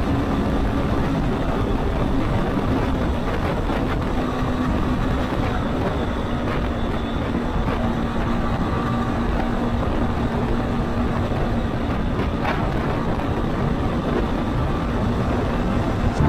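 200cc single-cylinder dual-sport motorcycle cruising on the highway, its engine running at a steady speed under a heavy rush of wind noise.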